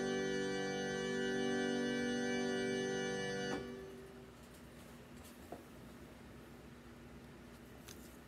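Digital keyboard holding a steady sustained chord, the close of the piece, released about three and a half seconds in. Then quiet room tone with a couple of light clicks near the end.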